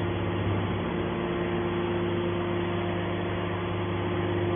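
Aluminium can baler's motor and pump running with a steady hum and several held tones.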